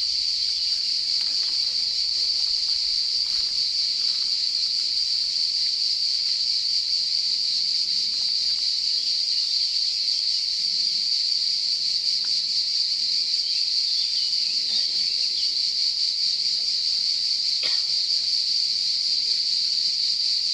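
Cicada chorus: a steady, high-pitched buzz that runs on without a break.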